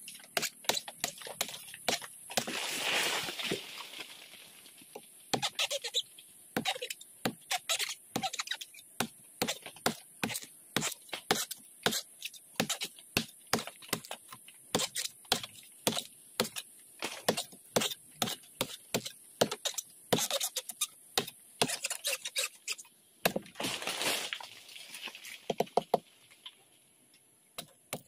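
Repeated sharp knife chops on a sugar palm's male flower stalk, roughly two a second and irregular, as the flower strands are cut away for sap tapping. Two longer stretches of rustling noise come in, one near the start and one near the end.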